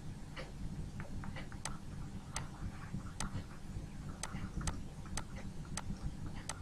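Faint, sharp ticks of a stylus tip tapping on a tablet surface while handwriting, about a dozen at an uneven pace, over a low steady hum.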